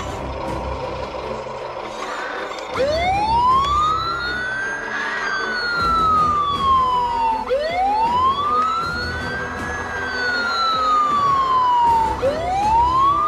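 Electronic fire-engine siren from the Huina 1562 RC fire truck's built-in sound module, played through its small speaker: a slow wail that rises over about two seconds and falls back, repeating about every five seconds. It starts about three seconds in, after a steady electronic hum.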